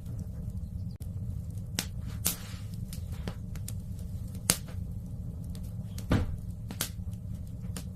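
Wood fire in a fireplace crackling: sharp, irregular pops every second or so over a steady low rumble.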